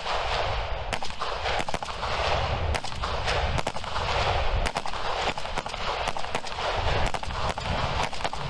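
Several FN FNC 5.56 mm assault rifles firing single shots in an irregular, overlapping string from a line of shooters, roughly two to three shots a second, each shot echoing.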